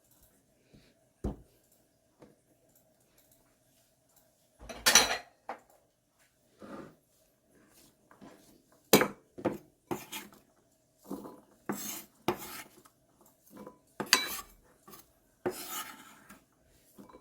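Utensils and dishes being handled: scattered clinks and knocks with a few short scraping strokes, the loudest about five and nine seconds in.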